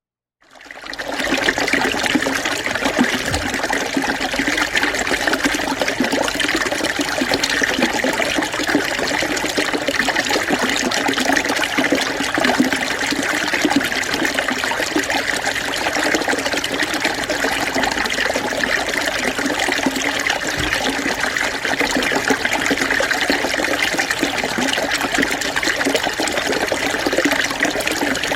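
Small stream running steadily over stones, a continuous rushing and rippling flow with no big splashes; it fades in over the first second.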